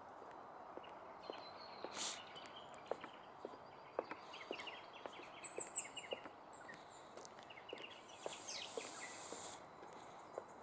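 Footsteps knocking on a wooden boardwalk, with birds chirping and calling. A short burst of noise comes about two seconds in and a hiss lasts a second or so near the end.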